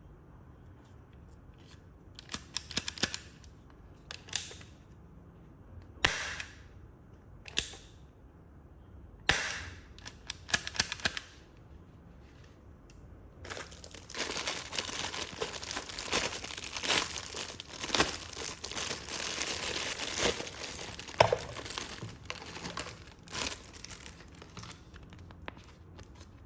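Plastic packaging being handled. First come scattered clicks and knocks, then from about halfway a long stretch of continuous crinkling and rustling that dies away near the end.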